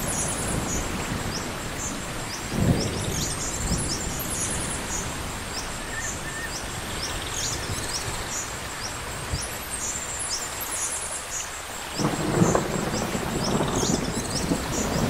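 Steady rain with thunder: a short rumble a few seconds in, and a longer, louder rumble that builds near the end.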